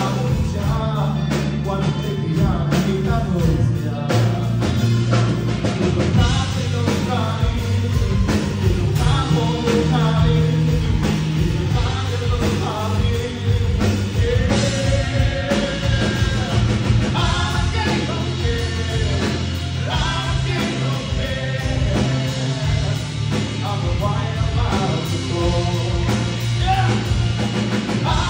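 Live rock band playing: a male lead vocalist singing into a microphone over electric bass and a drum kit, amplified through the stage PA.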